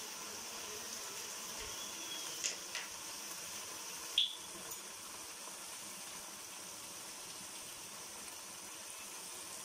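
Chicken pieces frying with onions in oil in a pot on high heat: a steady sizzle and bubble as the meat gives up its water. There are a few sharp clicks between about two and four seconds in.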